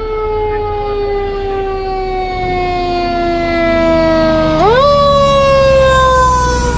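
Fire engine siren wailing as the truck approaches and passes: the pitch slides slowly down, jumps sharply back up about four and a half seconds in, then falls again. The truck's engine rumble grows beneath it as it draws close.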